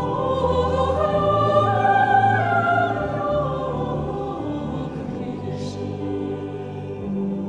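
Mixed chamber choir singing sustained chords, swelling to a peak about two seconds in and then softening, with a brief hiss a little past the middle.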